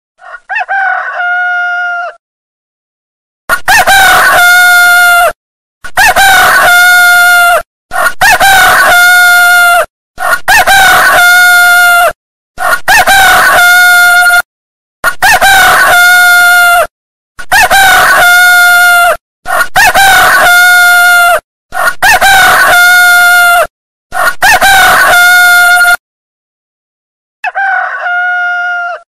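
A rooster crowing over and over. One shorter crow comes at the start, then ten loud crows follow back to back from a few seconds in, each under two seconds long with a brief break between them and all much alike. A quieter crow comes near the end.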